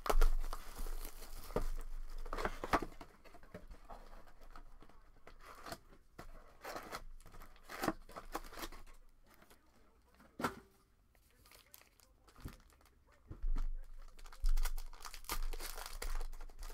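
Plastic shrink wrap crinkled and torn off a trading card hobby box in the first few seconds, then quieter rustling as card packs are handled, and near the end a foil card pack crinkled and ripped open.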